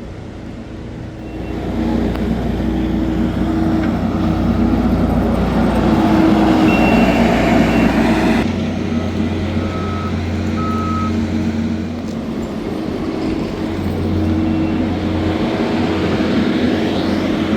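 Heavy machinery and truck engines running steadily, with two short backup-alarm beeps about ten seconds in.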